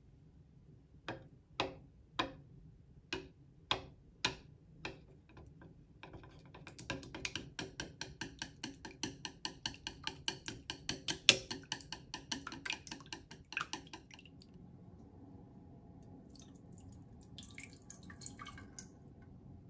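Chopsticks beating two raw eggs in a bowl: a handful of separate taps against the bowl in the first few seconds, then fast, even clicking for about eight seconds. Near the end, a faint pouring trickle as the soy-based seasoning liquid goes into a frying pan.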